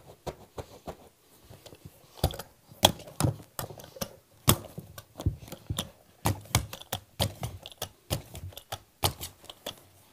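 Knee kicker being struck repeatedly to stretch carpet onto the tack strip: a run of sharp clacking knocks, irregular, one or two a second, starting about two seconds in.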